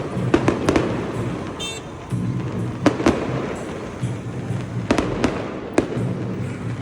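Fireworks going off: sharp bangs at irregular intervals over a continuous crackling hiss, with music playing underneath.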